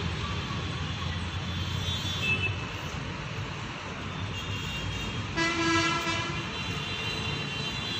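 Steady low rumble of traffic, with a vehicle horn sounding once for about a second, about five and a half seconds in.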